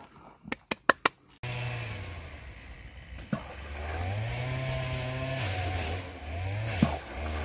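A few sharp clicks, then a small engine running and revving, its speed rising and falling several times.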